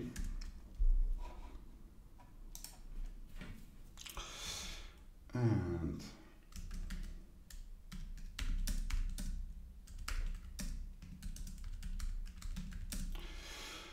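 Typing on a computer keyboard: irregular key clicks, in short runs.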